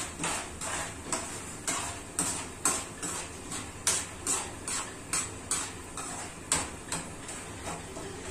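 Metal slotted spoon stirring and scraping raw popcorn kernels coated with oil, salt and turmeric around a metal pan, about two strokes a second, stopping near the end.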